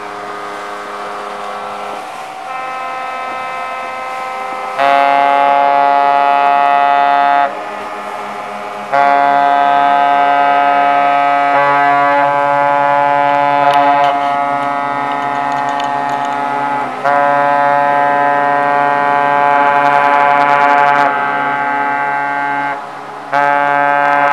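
Several ships' horns sounding together across the harbour, long steady blasts of different pitches overlapping, with the loudest blasts starting and stopping every few seconds. This is the ships' New Year salute.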